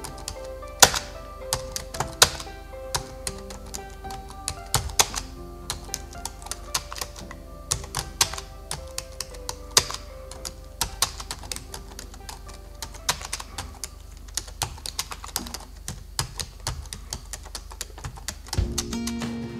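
Typewriter key-click sound effect, irregular rapid clicks as text is typed out, over soft background music with held notes. Near the end the music changes as lower notes come in.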